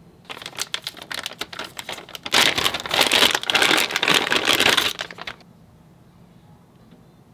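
Clear plastic bag crinkling as it is handled and opened to take out a golf club adjustment wrench. It starts as scattered crackles, becomes a dense, loud crinkling about two seconds in, and stops about five seconds in.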